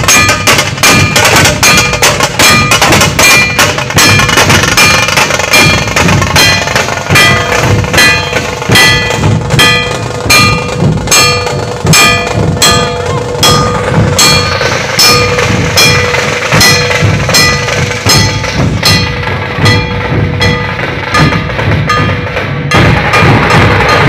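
Dhol-tasha ensemble: large barrel dhol drums and tasha drums beaten together in a fast, steady rhythm, with ringing metallic strokes over the beat. The playing shifts about 23 seconds in, where the middle range thickens.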